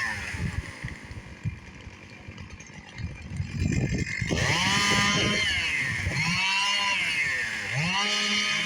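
Chainsaw idling for a few seconds, then revved up and let back down about three times with the throttle, each rev rising to a high steady whine before falling away.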